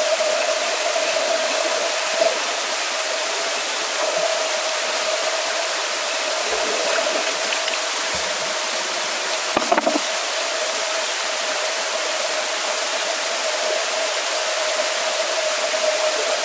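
Steady rushing noise of a swimming pool with a constant mid-pitched hum underneath, and one short knock about ten seconds in.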